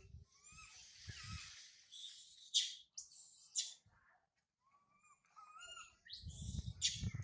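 Young macaque crying: high, whistling calls that rise and fall, broken by a few short harsh rushes of noise.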